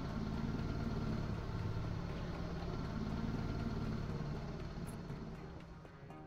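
Outboard motor running steadily, driving a converted barge away from the jetty. The hum eases slightly near the end.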